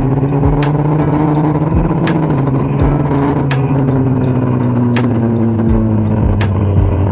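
Kawasaki Dominar 400's single-cylinder engine running on the road, its pitch slowly rising and falling with the throttle, under a steady beat of background music.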